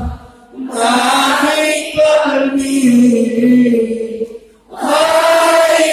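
A large group chanting a sholawat together in long, held sung phrases, broken by a short pause for breath about half a second in and again about four and a half seconds in.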